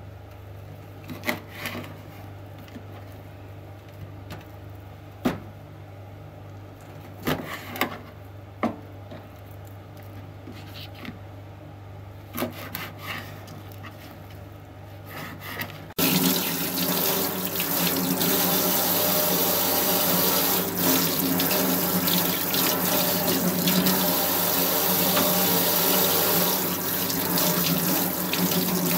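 A kitchen knife cutting dried herring fillets on a cutting board, with a few sharp knocks of the blade against the board. About halfway through, this gives way to a kitchen tap running steadily into a stainless steel sink as hands are rinsed under the stream, the loudest sound here.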